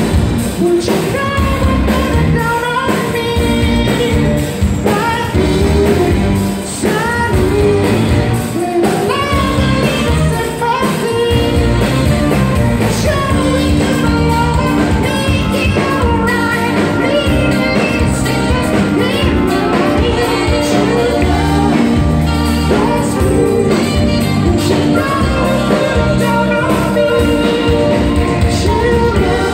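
Live band playing a song with lead vocals over drums, guitar, keyboards and saxophone, amplified through the PA in a large hall.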